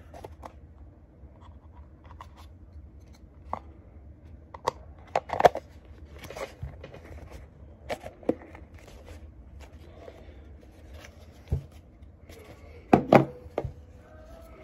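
Hard plastic parts of a Milwaukee M18 orbital sander's dust canister with HEPA filter being handled and fitted together: irregular clicks, knocks and rubbing, with louder clatters about five seconds in and near the end.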